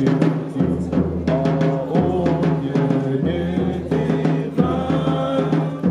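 Group of voices singing a song with heavy drum accompaniment, the drums beating steadily under the held sung notes.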